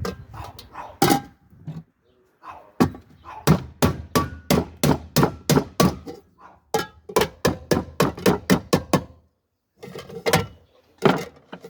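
Repeated hammer blows, about three strikes a second, broken by two short pauses.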